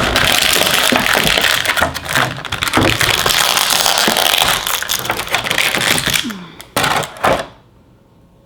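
Plastic packaging crinkling and crackling loudly as a small toy figure is unwrapped, then two short sharp rustles before it stops.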